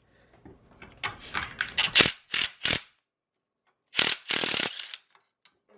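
Hand ratchet wrench clicking in short strokes as a transmission-to-engine bolt is turned: a quick run of strokes about a second in, then one longer stroke near the end.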